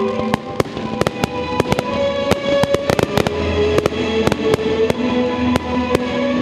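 Aerial fireworks shells bursting in an irregular run of sharp bangs and crackles, over music with long held notes.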